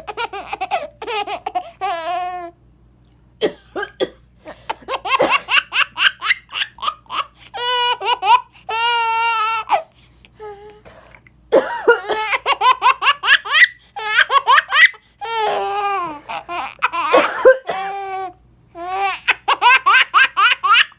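A baby laughing in repeated fits of rapid, high giggles and squeals. The fits are set off by its mother's coughing, and her coughs fall in the gaps between them.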